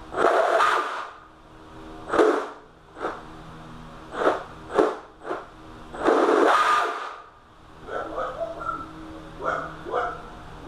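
Brushless motor in an RC hydroplane revved in a series of short throttle bursts, spinning a dry, ungreased flex shaft. Two bursts last about a second each; the last few come as short stuttering pulses. A steady low hum lies underneath.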